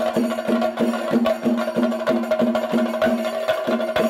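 Several chenda drums, the Kerala cylindrical drum, beaten with sticks in a fast, even rhythm of sharp strokes, the drum heads ringing between strokes.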